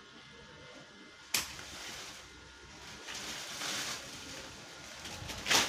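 Leafy banyan branches being cut and pulled: a sharp crack about a second in, leaves rustling a couple of seconds later, and a louder swish and crash of leaves near the end.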